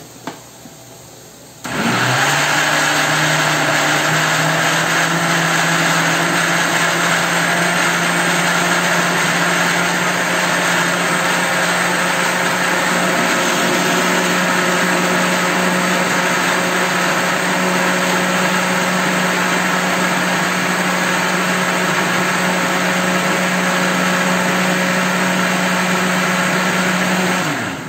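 Electric blender switched on about two seconds in, running steadily on a batter of eggs, parmesan and flour, its hum creeping slightly up in pitch, then switched off just before the end.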